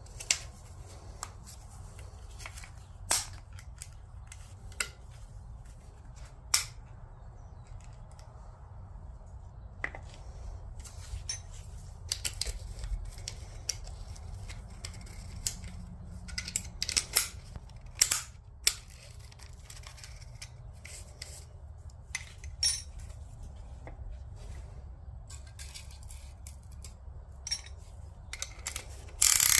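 Hand tools and metal engine parts clicking and clinking now and then over a low steady hum, with a burst of louder rapid clicks near the end.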